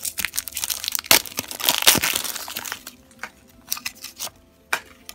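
Clear plastic shrink-wrap being torn by its tear strip and crinkled off a small hard-plastic toy house, with dense crackling over the first two seconds, loudest about one and two seconds in, then sparse clicks and rustles as the freed plastic house is handled.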